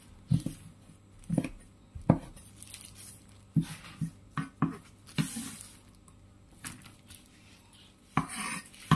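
Chinese cleaver chopping bird's-eye chillies on a wooden chopping board: single sharp knocks of the blade on the board at an uneven pace, about one or two a second, with a couple of longer scraping sounds between them.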